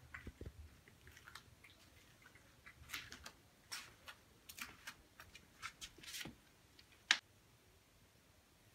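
A cat crunching dry kibble: irregular crisp crunches of varying loudness, the sharpest about seven seconds in, stopping soon after.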